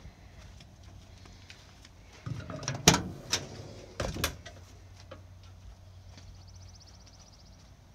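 Cab door of a 1993 Ford L8000 truck being unlatched and swung open: a quick run of metal clacks and clunks about two to three seconds in, the loudest near three seconds, then two more knocks a second later.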